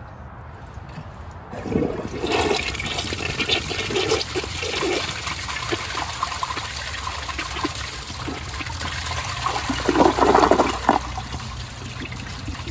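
1981 Briggs Abington toilet flushing on its 1.6 setting: water rushes in suddenly about a second and a half in and swirls down the bowl, with loud gurgling near the end. It is flushing a wristband and water balloon, which go down with a little struggle.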